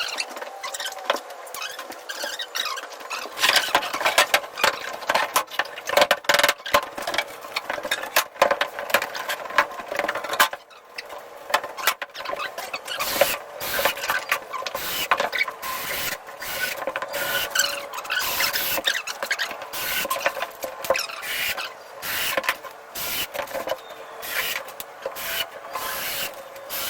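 Timber-building sounds in a workshop, played at timelapse speed: a dense, fast jumble of clicks, taps and squeaks.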